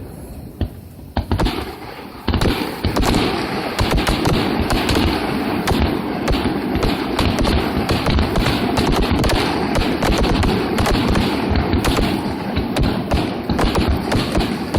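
Fireworks going off in a rapid barrage of bangs and crackling. It starts with a few separate pops, then becomes a dense, continuous volley about two seconds in.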